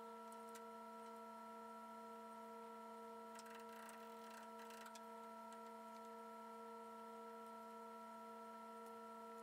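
Near silence: a faint steady hum of several tones, with a few very faint clicks about three to five seconds in.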